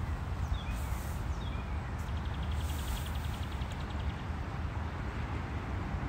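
Small birds chirping, with one giving a rapid trill of about ten notes a second for roughly two seconds, a couple of seconds in, over a steady rushing outdoor background noise.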